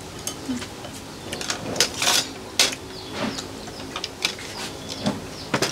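Scattered sharp clicks and clinks of chopsticks and dishes as people eat a meal, irregular, with a few louder knocks about two seconds in and one near the end.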